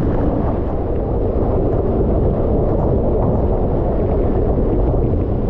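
Steady, loud roar of the Pulhapanzak waterfall heard up close, a deep rumble of falling water with no breaks, buffeting the microphone.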